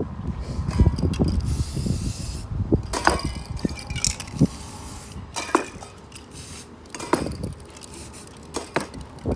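Aerosol spray paint can hissing in a few short bursts, with sharp clicks and knocks in between.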